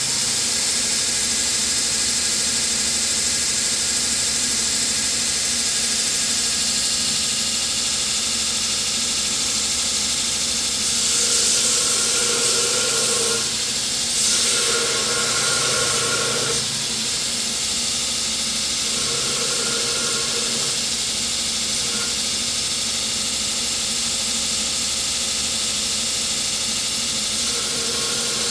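Belt grinder with a coarse 36-grit belt running steadily, with the steel blade pressed against the belt in short bouts, about four times, each adding a louder grinding whine.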